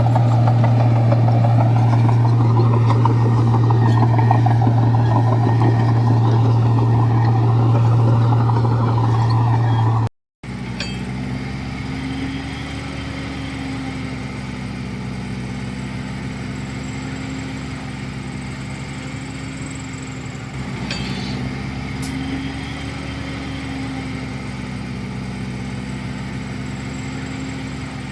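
Heavy diesel engine of earthmoving machinery running loudly and steadily with a strong low hum. It cuts out abruptly about ten seconds in, then comes back quieter, its pitch slowly rising and falling as the machine works.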